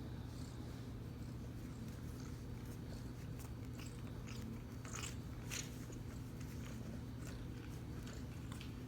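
Tabby cat purring steadily close to the microphone, with a few short clicks about halfway through.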